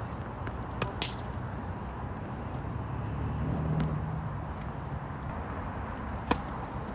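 Tennis balls being struck with rackets on an outdoor hard court: a few sharp, isolated pops over a steady low rumble. The loudest pop, near the end, is a serve.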